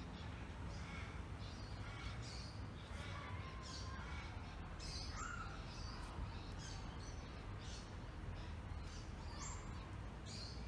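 Outdoor ambience: a steady low rumble under scattered short bird chirps and calls.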